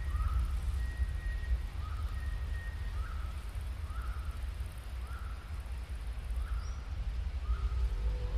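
Outdoor ambience: a steady low rumble, with a short call repeated about once a second.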